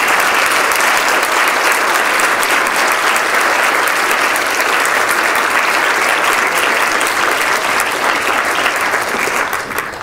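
Audience applauding steadily, the clapping dying away near the end.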